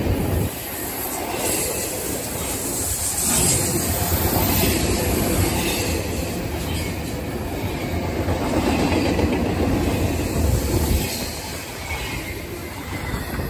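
Double-stack container freight train passing close by, its steel wheels rumbling over the rails in a steady, loud rush of noise. It begins to fade in the last couple of seconds.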